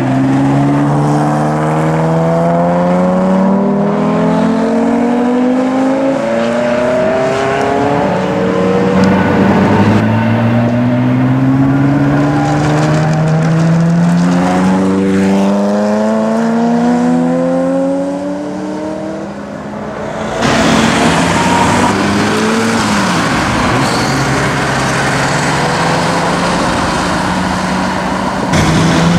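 Ferrari F40s' twin-turbo V8 engines accelerating hard, each pull climbing in pitch with the revs and dropping back at the gear changes, one after another. About two-thirds of the way through the sound dips, then comes back noisier and less tonal.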